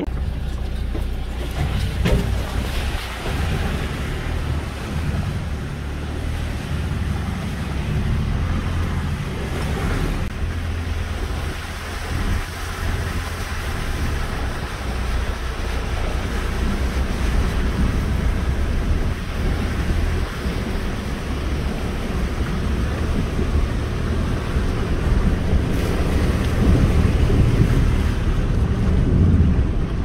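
A car driving slowly along a rough, muddy dirt track, heard from inside the cabin: a steady low rumble of engine, tyres and jolting bodywork, with some wind noise on the microphone.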